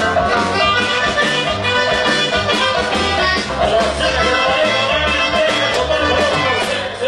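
Norteño band playing a huapango instrumental passage: accordion melody over a steady, pulsing bass beat.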